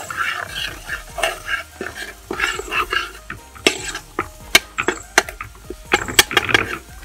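A long-handled ladle stirring and scraping ginger-garlic paste frying in coconut oil in a metal pot. Several sharp clinks of the ladle against the pot, most of them in the second half.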